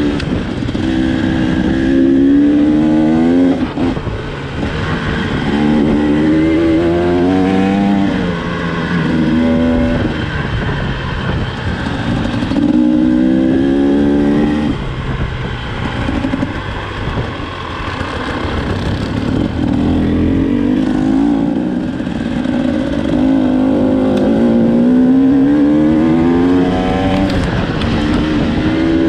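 Enduro motorcycle engine being worked on and off the throttle, its pitch climbing and dropping back about seven times.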